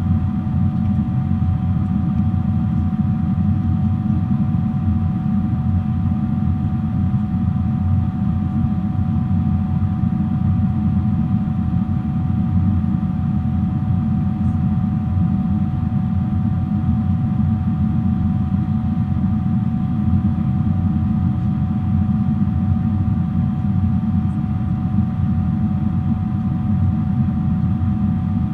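Boeing 777-300 in flight: a steady low roar of its jet engines and airflow, with a steady high whine over it.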